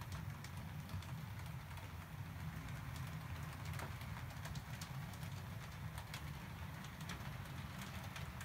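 Model trains running on the layout: a steady low motor hum with faint, irregular clicking of wheels over the rail joints.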